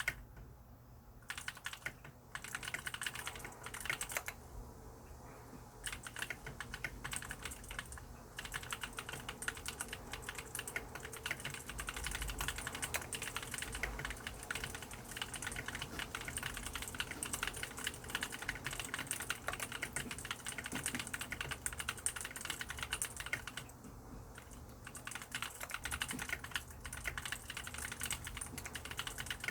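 Mechanical keyboard with lubricated blue clicky switches being typed on fast: a dense run of keystroke clicks, with short pauses just after the start, around four to six seconds in and again about twenty-four seconds in.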